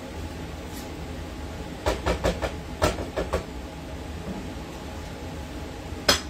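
Light clicks and knocks of a serving utensil against dishes, a quick run of about seven about two seconds in and one sharp click near the end, over a steady low kitchen hum.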